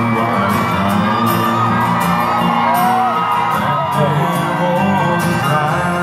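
Live country band playing, with a fiddle carrying the melody over bass and a steady drum beat, and an audience calling out and whooping.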